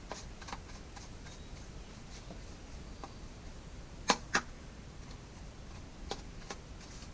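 A few sharp clicks and knocks from chainsaw parts being handled during a chain and sharpening-stone change: two close together about four seconds in, and two fainter ones about six seconds in.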